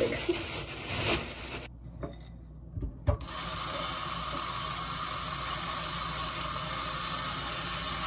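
A plastic bag crinkling for the first second or two, then, after a short quiet break, a kitchen faucet running steadily into a glass bowl of spinach being rinsed under it.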